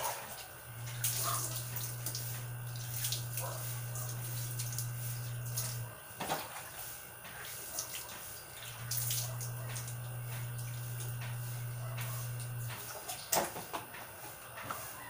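Water scooped from a plastic basin with a dipper and poured over a bather, splashing onto the concrete floor about four times. A low steady hum comes on twice, for about five and then four seconds.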